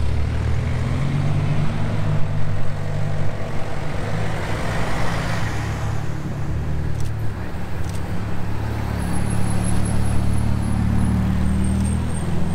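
Town-street traffic: car engines running at low speed, with a car passing about five seconds in.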